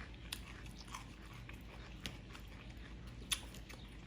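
Eating sounds: chewing with soft mouth smacks and clicks, three of them sharper, about a third of a second, two seconds and three and a third seconds in.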